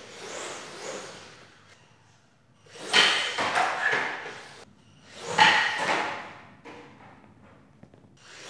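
Two heavy bangs about two and a half seconds apart, each ringing out for about a second, with a third starting at the very end.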